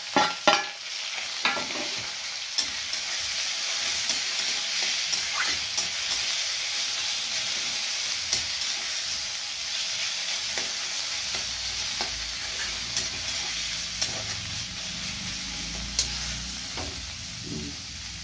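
Chopped saag greens and browned onions sizzling in hot oil in a steel kadhai, stirred with a spatula. A steady sizzle runs throughout, with scattered scrapes and taps of the spatula on the pan and a few loud knocks right at the start as the greens are tipped in from a steel plate.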